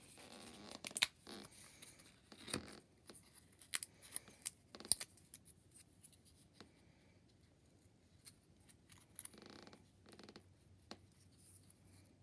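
Small cardboard paper-craft pieces handled and folded by hand: scattered light clicks and scratchy rustles, with a few sharper snaps.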